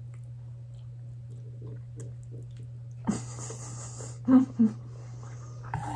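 Instant ramen noodles slurped in through the lips for about a second, then chewing with two short, loud hums through a full mouth.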